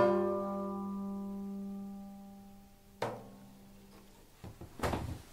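Seven-string banjo's last chord ringing out and fading away over about three seconds, ending the breakdown. A short muffled thump follows about three seconds in, then a few faint knocks near the end.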